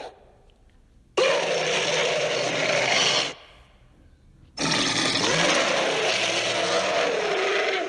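Two harsh, drawn-out roars from a werewolf kaiju monster sound effect. The first bursts in sharply about a second in and lasts about two seconds; the second starts past the halfway point and runs over three seconds.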